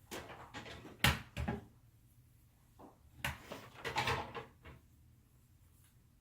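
Rustling and light knocks of hair being handled around a curling iron, in two bursts, with one sharper knock about a second in.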